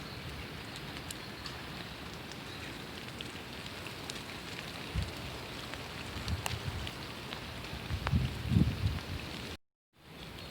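Steady rain falling on a surface, with scattered sharp drops ticking through it and a few low rumbles near the end. The sound cuts out completely for about half a second just before the end, then the rain resumes.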